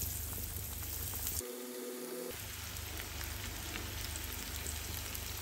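Hot oil sizzling steadily around breadcrumb-coated prawns deep-frying in a pan, with faint crackles.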